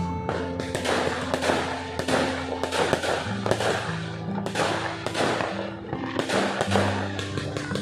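Fireworks going off in many overlapping bangs and crackles, several a second, with music playing alongside.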